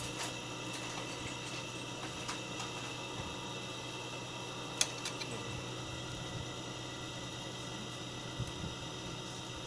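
A steady hum and hiss with a few faint steady tones in it, broken by a few light clicks, the sharpest one about five seconds in.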